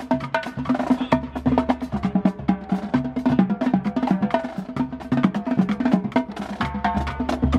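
Marching drumline playing a fast rhythm: rapid stick strokes on multi-tenor drums and snare drums, with bass drum hits underneath.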